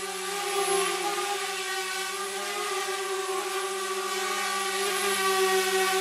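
Multirotor drone's motors and propellers running in steady flight, a constant buzzing whine with several overtones over a rushing hiss.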